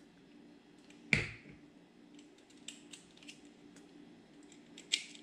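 Metal kitchen tongs and a fork handled over a ceramic plate of cooked roast: one sharp clack about a second in, a few light clicks in the middle, and another click near the end.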